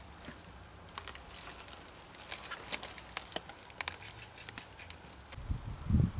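Scattered light clicks and taps, with a few dull low thumps near the end, from a handheld camera being handled and moved about.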